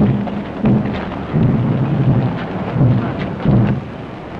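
Wind buffeting an outdoor microphone: irregular heavy low rumbling gusts, easing off near the end.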